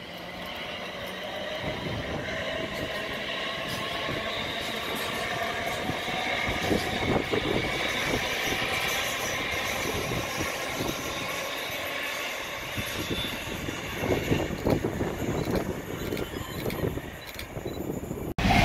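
London Northwestern Railway Class 350 electric multiple unit passing at speed: a growing rush of wheels on rail with a steady whine over it, and fast wheel clicks through the second half.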